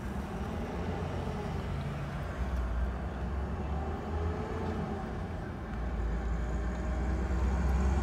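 Car engine and road noise heard from inside the cabin, a steady low rumble that grows louder over the last couple of seconds.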